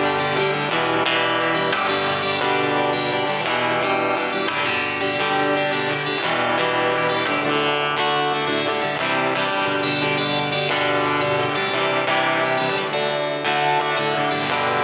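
SQOE Cranberries 41 acoustic guitar played in a continuous passage of strummed and picked chords at an even level, as a sound test of the instrument.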